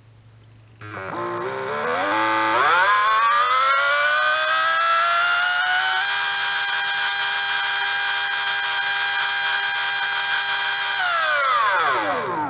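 Surpass Rocket V6 17.5T brushless RC motor driven by a Hobbywing Tunalyzer: a whine that climbs in steps as the motor spins up, holds a steady high pitch for several seconds, then glides down as it spins down near the end, with a thin high tone over it. The endbell timing is at about 52.8 degrees, past the motor's sweet spot.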